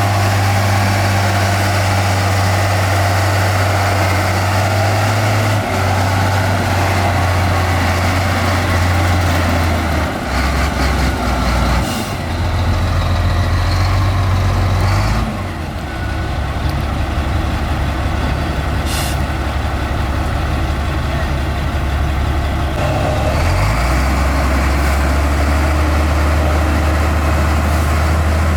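Diesel engines of heavy earthmoving machinery, a bulldozer and dump trucks, running under work, the engine note shifting several times. Two short sharp sounds come through, about twelve and nineteen seconds in.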